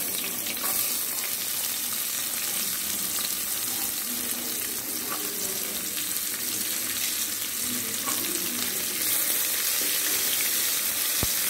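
Chopped onions frying in hot oil in an aluminium pressure cooker, stirred with a wooden spatula: a steady sizzle that grows a little louder about nine seconds in. A single sharp click comes near the end.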